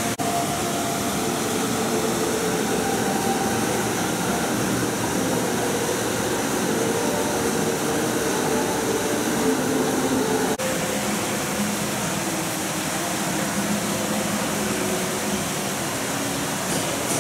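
Steady rushing noise of a public aquarium hall's pumps and ventilation, with a faint murmur of distant voices. It drops out for an instant twice, just after the start and about ten seconds in.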